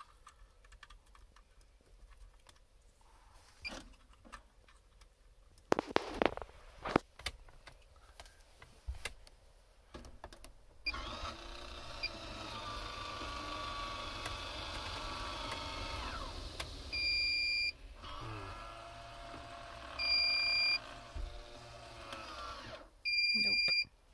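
MaxxAir roof vent fan in a camper van starting up about halfway through and running with a steady motor hum, changing speed briefly partway; it is back on after a part in its power supply was swapped out. Three long electronic beeps, about three seconds apart, sound over it near the end, and clicks and knocks of handling the wiring come before it starts.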